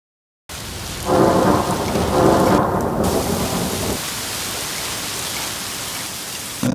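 Heavy thunderstorm rain pouring down on a street, starting suddenly about half a second in. Thunder rumbles over the rain for the first few seconds, swelling twice, then the rain goes on as a steady hiss.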